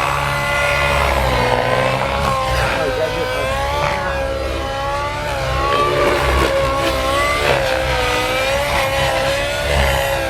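Radio-controlled helicopter flying, its rotor and motor making a steady whine whose pitch dips and rises several times as the helicopter is manoeuvred.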